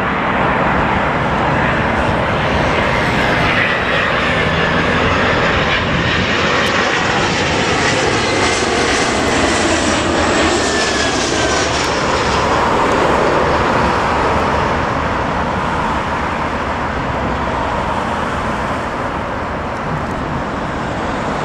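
Jet airliner's engines passing low overhead on final approach: a loud, steady rushing noise with a thin whine that rises and then falls in pitch around the middle as the aircraft goes over.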